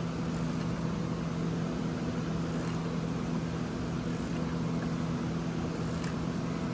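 Steady low mechanical hum at a constant pitch, running unchanged.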